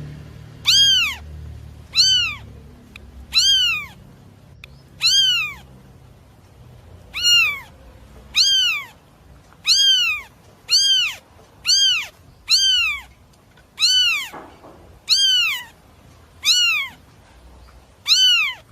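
An animal calling over and over: about fourteen short, high-pitched calls, each rising then falling in pitch, roughly one a second with brief pauses.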